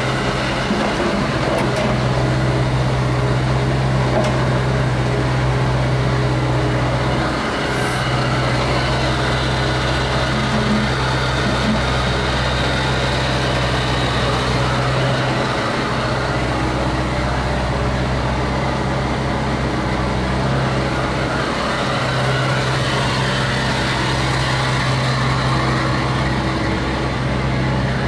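Hyundai R55 mini excavator's diesel engine running steadily under work, with brief changes in its drone a couple of times.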